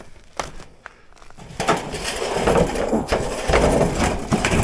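Rough scraping and crackling with scattered knocks, as a corrugated roofing sheet is shifted and handled on the roof. It starts about a second and a half in.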